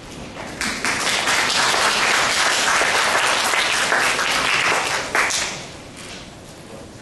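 Audience applauding, a dense patter of many hands clapping that starts about half a second in and dies away after about five seconds.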